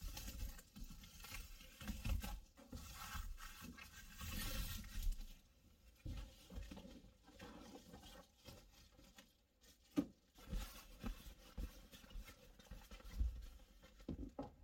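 Faint rustling and shuffling of fabric and belongings as bedding and clothes are moved around and rearranged by hand, with one sharp click about ten seconds in.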